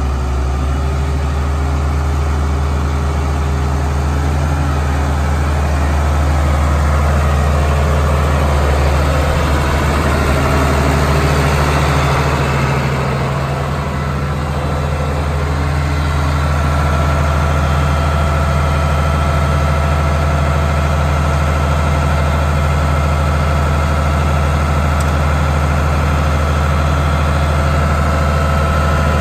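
International 1566 tractor's turbocharged six-cylinder diesel running steadily at idle, its pitch unchanging.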